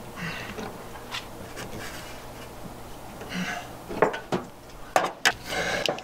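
An adjustable wrench clinking and scraping on a fitting as it is turned and tightened, with a few sharp metallic knocks about four to five seconds in.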